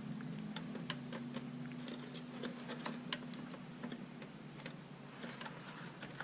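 Light, irregular small clicks and taps as the parts of an original Xbox are handled while its disc drive is worked loose from the case. A low steady hum runs underneath and fades about four seconds in.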